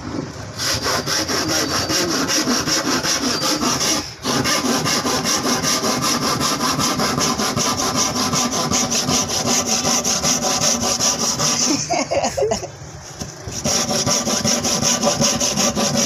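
Handsaw cutting through a wooden board with fast back-and-forth strokes. The sawing breaks off very briefly about four seconds in, pauses for a second or two near the end, then starts again.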